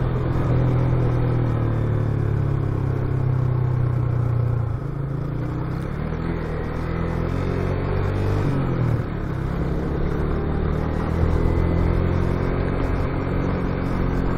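Motorcycle engine running under way. Its note drops about five seconds in, and it dips and rises again about nine seconds in, as the throttle or gear changes.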